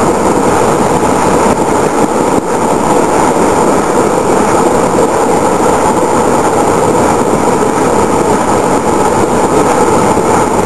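Iron-ore train rolling past close by: a loud, steady rumble of wheels on rail.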